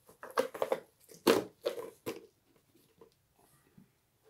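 Hard plastic food container and lid being handled: a few sharp clicks and knocks in the first two seconds, then only faint small clicks.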